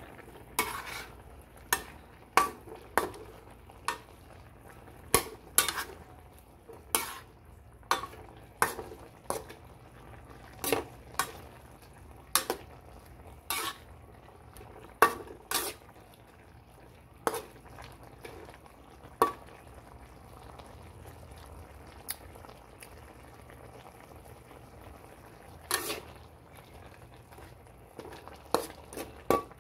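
A metal spatula scraping and knocking against a wok as pieces of pork in sauce are stirred. The strokes are irregular, about one or two a second, with a pause of several seconds about two-thirds of the way in and a few more strokes near the end. A faint simmering runs underneath.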